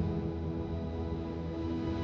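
Ambient background music with sustained held tones over a low bass pulse.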